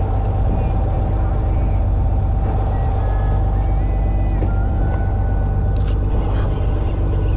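Fishing boat's machinery running with a steady low drone. A few faint thin tones come and go about halfway through.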